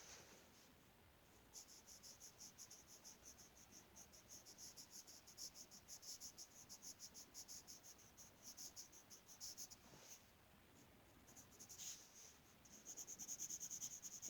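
Colored pencil scratching on paper in quick back-and-forth shading strokes as an area of a drawing is colored in. The strokes pause briefly about ten seconds in, then resume, louder near the end.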